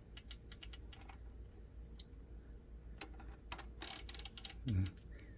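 Scattered light clicks and ticks from handling the ribbon mechanism of a Smith Premier No. 10 typewriter, coming in two bunches, with a short scraping rustle just before 4 s in.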